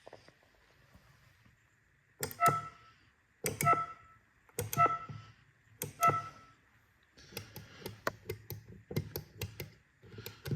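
Sound effects from a DeLorean time-machine replica: four loud clicks, each with a short electronic beep and a little more than a second apart, then a quicker run of lighter clicks and ticks.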